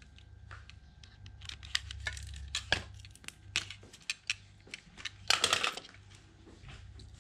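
Irregular light clicks, ticks and scrapes of small objects being handled, with a longer rustling scrape about five seconds in.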